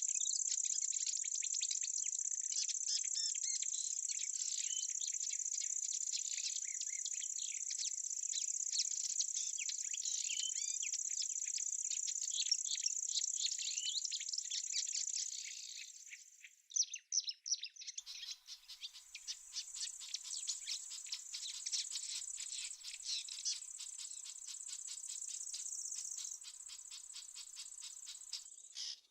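Summer field ambience: a steady high insect trill with many small birds chirping over it. About two-thirds of the way through it drops away briefly and comes back as a different insect chorus with a fast, even pulsing.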